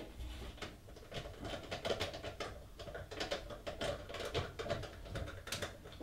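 Small irregular clicks and scratches of a screw being started by hand into the back of a computer case to hold the power supply unit.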